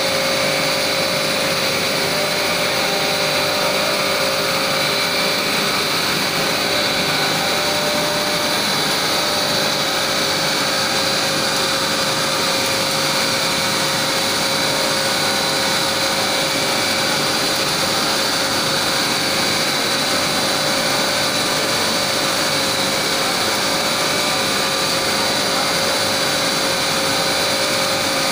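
Kabra blown film extrusion line running: a loud, steady mechanical whir with a constant mid-pitched tone and a higher whine held throughout.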